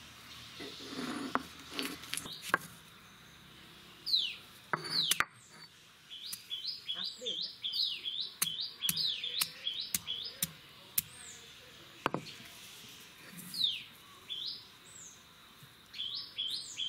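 Birds chirping over and over with quick falling calls, mixed with sharp knocks of a stone roller pounding garlic and ginger on a flat stone grinding slab.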